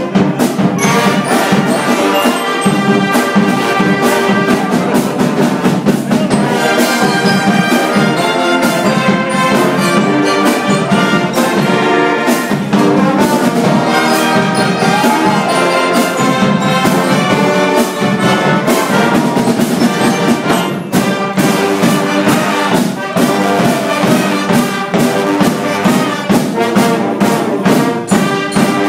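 A band playing loudly: brass instruments such as trumpets and trombones carry the tune, with steady drum hits throughout.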